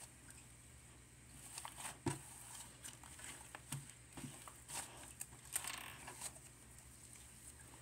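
Frozen yogurt slime being squeezed and pressed by hand, giving a run of small sticky clicks and pops for a few seconds before it goes faint.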